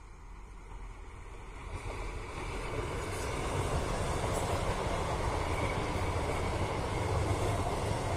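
An old electric multiple unit (EMU) local train passing on electrified track: its wheels running on the rails grow louder over the first few seconds as it comes near, then hold steady as the coaches go by, with a few light clicks.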